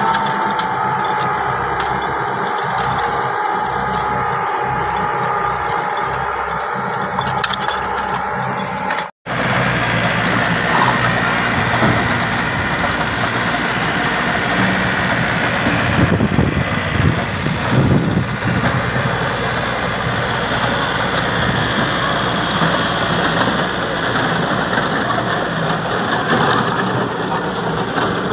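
Four-wheel-drive farm tractor's diesel engine running steadily while it pulls a disc plough through the soil. There is a sudden break about nine seconds in, after which a Yanmar tractor with a rotary tiller runs with a rougher, noisier engine sound.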